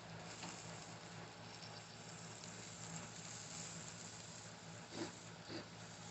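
Chicken drumsticks sizzling on a gas grill, a faint steady hiss with a low hum, and a few light clicks of tongs turning the pieces, the sharpest two about five seconds in.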